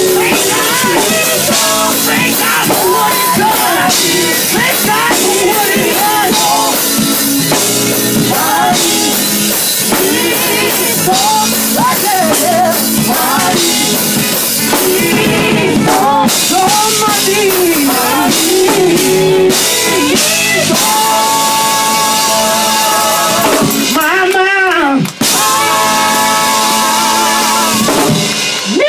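Live gospel performance by a male vocal group: a lead singer's voice swooping up and down over a drum kit and band. About two-thirds of the way through, the music settles into long held notes.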